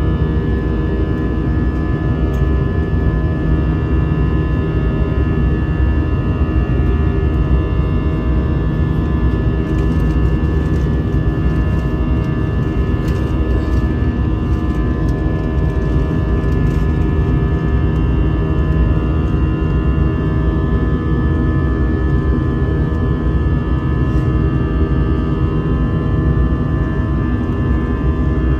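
Jet airliner cabin noise while climbing out after takeoff: a steady low rush of engines and airflow, with several steady whining tones from the engines over it.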